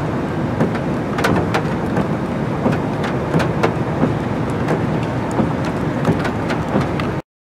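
Steady rain noise with a low rumble and scattered sharp crackles of drops. It cuts off abruptly near the end.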